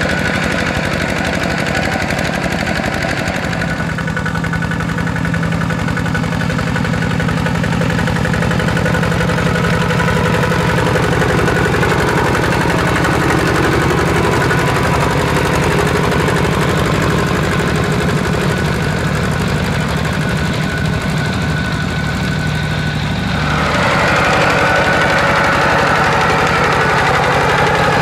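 A two-wheel walking tractor's single-cylinder diesel engine runs steadily under load while pulling a disc plough through wet soil. About four-fifths of the way through, the sound gets louder and brighter.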